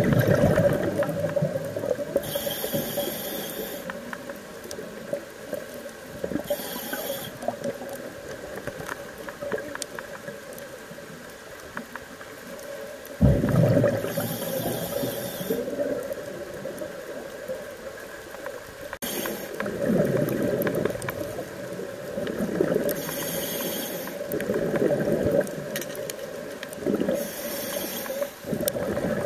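Scuba diver's regulator breathing underwater: a short hissing inhale every few seconds alternating with a rush of exhaled bubbles, about six breaths in all.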